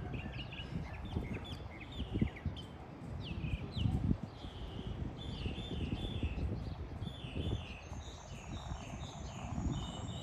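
Small songbirds chirping over and over in short, high notes, some sliding downward, over an uneven low rumble on the microphone.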